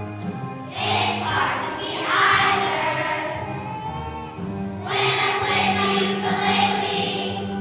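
Choir of third-grade children singing with instrumental accompaniment, long held notes over a steady low bass line.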